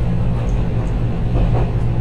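Steady low hum of a stopped 813-series electric train, its equipment droning on a few fixed low tones.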